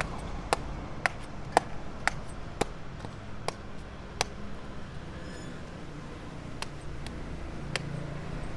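Knife chopping into fresh palmyra palm fruit: sharp strikes about twice a second, spacing out after a few seconds to single chops, over a low steady hum of the street.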